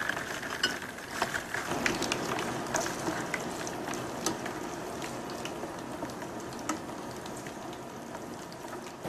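Peeled shrimp frying in a pan of hot oil: a steady sizzle with many small crackles and pops.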